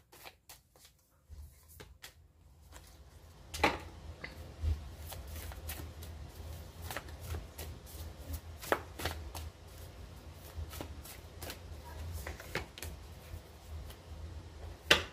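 An oracle card deck being shuffled by hand, the cards tapping and riffling in many small clicks, with a few sharper snaps as cards are dealt onto the table.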